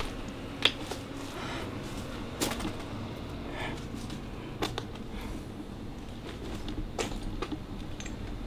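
Scattered sharp clicks and knocks, a couple of seconds apart: handling noise from a handheld camera being moved and pulled up by hand.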